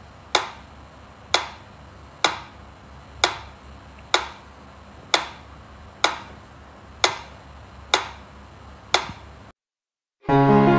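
Mechanical pendulum metronome ticking steadily, about one sharp click a second. The ticks stop, and after a short silence music starts near the end.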